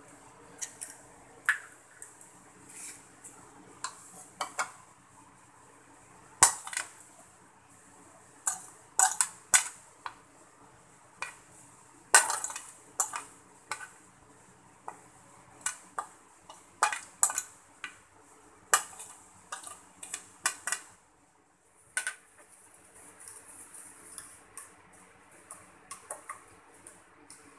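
Metal fork and spoon clinking and scraping against a plastic bowl and plate in irregular sharp taps as eggs and chopped ingredients go into the bowl, then a quicker run of light taps over the last few seconds as the fork beats the eggs.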